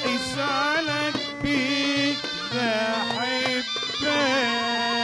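Egyptian mizmar (Saidi double-reed shawms) playing a reedy, ornamented folk melody, settling into one long held note about four seconds in.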